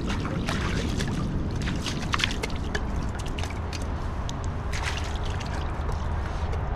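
Hands and a plastic bowl being rinsed in a shallow creek: water splashing and trickling in many short splashes, over a steady low rumble.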